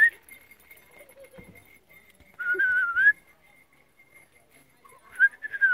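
Whistling in clear, slightly wavering notes: a short rising whistle at the start, a longer one about two and a half seconds in, and a few short whistles near the end.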